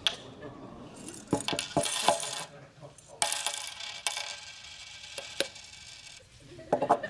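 Loose coins clinking and rattling as they are tipped or shaken out of a container: two longer rattling pours, with single clinks between them and a few more near the end.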